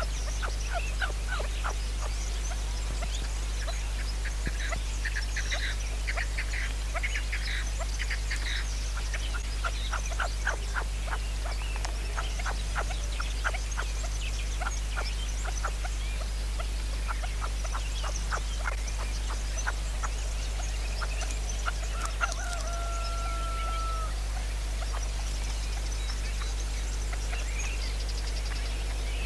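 Red-legged partridges calling: runs of short, rapid clucking notes repeated over and over, with small birds chirping faintly above them. About 22 seconds in there is one steady held note lasting about two seconds.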